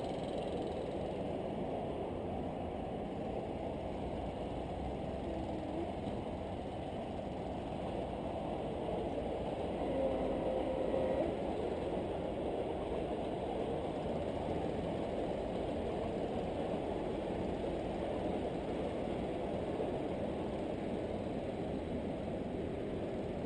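Wind rumbling on a body-worn camera's microphone high up on a building: a steady low rumble.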